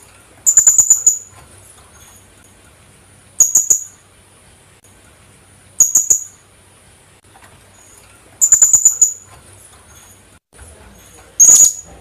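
Philippine hanging parrot (kulasisi) calling: five short bursts of shrill, high-pitched chirps, each a quick run of sharp notes, coming about every two to three seconds.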